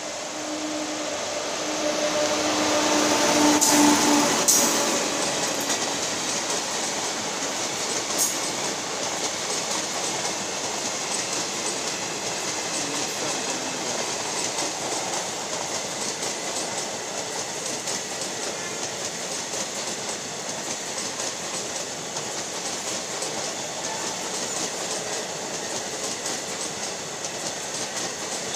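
Indian Railways WAP-7 electric locomotive passing at full speed, loudest about four seconds in as it goes by with a steady hum. Its passenger coaches follow with a continuous rumble and wheel clatter on the rails.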